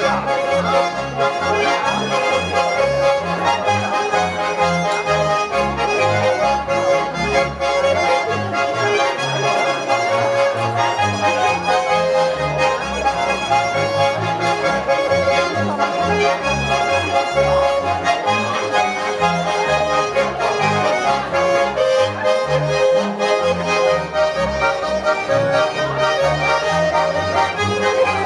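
Swiss folk dance music played on three Schwyzerörgeli, small diatonic button accordions, in steady rhythm, with a double bass playing the bass line on an even beat.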